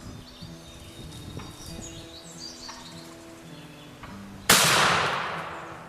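A single loud shotgun shot about four and a half seconds in, ringing off and dying away over a second or so: the hunter firing at a wild turkey gobbler. Guitar music plays underneath, with a few faint bird chirps.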